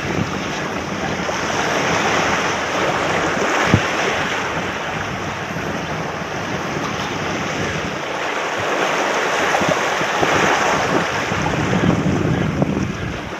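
Small waves washing over shoreline rocks, the noise swelling and easing every few seconds, with wind buffeting the microphone. One sharp click sounds a little under four seconds in.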